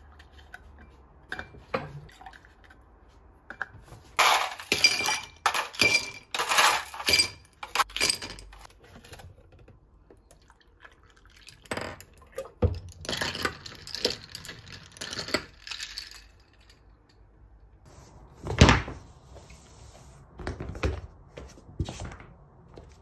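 Ice cubes clattering and clinking into a tall drinking glass, the glass ringing, then milk poured over the ice. A single loud knock comes later.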